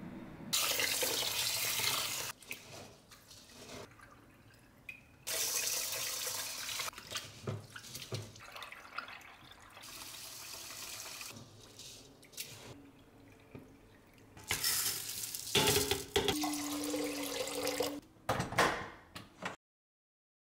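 Water poured from a spouted container onto rice in a stainless-steel mesh strainer over a sink, splashing through the grains to rinse them. It comes in several pours of a second or two with short pauses between them, and a few clacks near the end.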